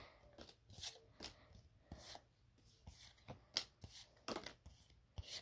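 Faint, irregular soft clicks and rustles of Pokémon trading cards being slid and flipped through by hand.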